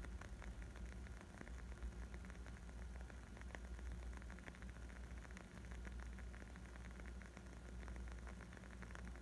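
Wood fire crackling: a dense, irregular patter of small pops and snaps over a low steady rumble.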